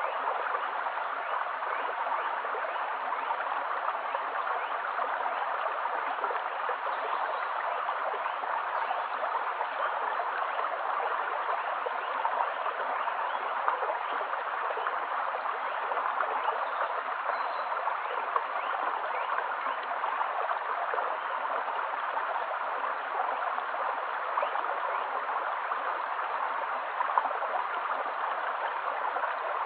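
Shallow stream running steadily over a stony bed, a constant watery rush with now and then a small gurgle or splash a little louder than the rest.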